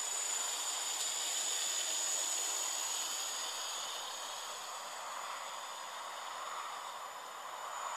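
Gaui 330X-S quadcopter's electric motors and propellers whirring at a distance, a steady hiss-like whine that fades a little as it flies away.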